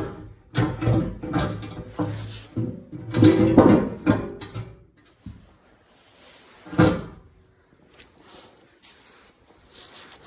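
An engine skid plate being pushed up and shifted into place under a pickup truck. It bangs and scrapes against the frame with a ringing tone several times in the first half, then gives one sharp knock about seven seconds in as it seats.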